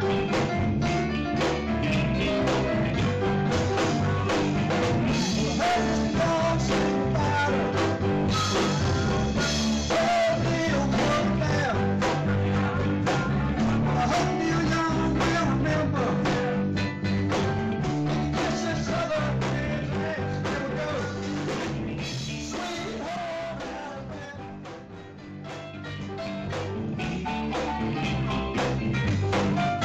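Live blues-rock band playing: electric guitar, drum kit and keyboards together. The band drops in volume for a moment about three quarters of the way through, then comes back up.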